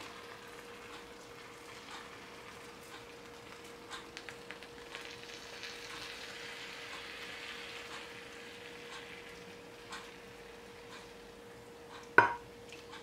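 Cooled sugar syrup poured in a thin stream over warm, freshly baked baklava: the pastry crackles and sizzles faintly as it soaks up the syrup, with scattered small ticks. A single sharp knock near the end.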